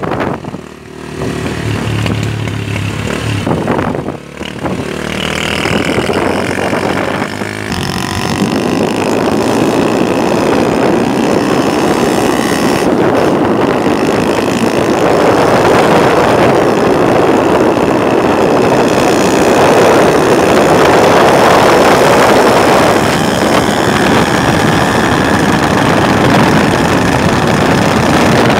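Small motorcycle being ridden along a road, its engine running under a rush of wind on the microphone. The wind rush builds from about eight seconds in as the bike picks up speed, and stays loud.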